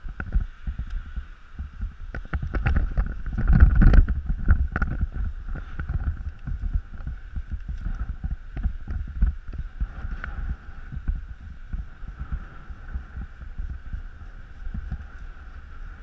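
Wind buffeting the microphone of a bicycle-mounted action camera while riding, a low uneven rumble with scattered knocks and rattles from the bike over the road; loudest about four seconds in.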